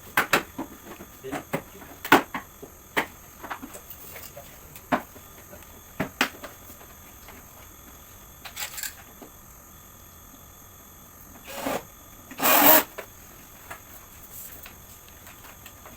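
Scattered clicks and knocks of plastic and metal parts being handled while a portable air conditioner is taken apart, with a short, louder scraping rush about twelve and a half seconds in.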